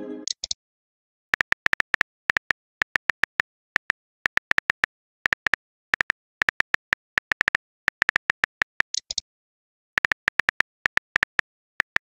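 Texting-story app's keyboard clicks: quick runs of short, sharp ticks as a message is typed letter by letter, with brief pauses between runs. A chime tails off at the very start, and a short high sound comes about nine seconds in.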